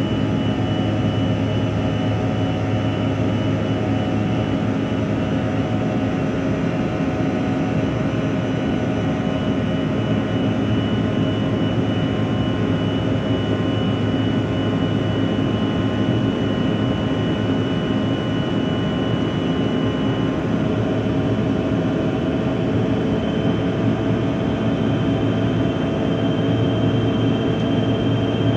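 Airliner engine noise heard from inside the cabin during the climb after takeoff: a steady drone with a high whine that steps up slightly in pitch about twenty seconds in.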